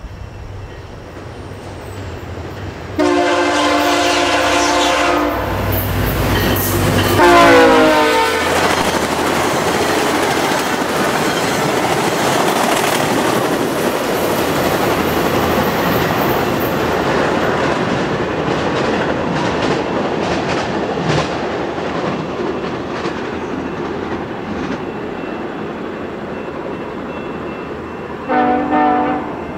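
VIA Rail diesel passenger locomotive passing at speed: a horn blast starts abruptly about three seconds in, and a second blast a few seconds later falls in pitch as the locomotive goes by. Then comes the steady rumble and clatter of the coaches running past, slowly fading as they recede, with a short horn blast from the departing train near the end.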